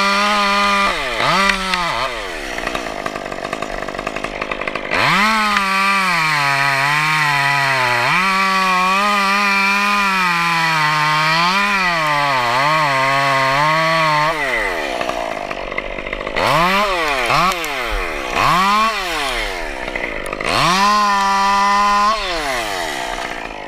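Chainsaw revving in a couple of short blips, then held at full throttle for about ten seconds while cutting into pine wood, its pitch sagging and recovering under the load; three more quick revs follow near the end. The chain is dull, in its user's words "wicked dull".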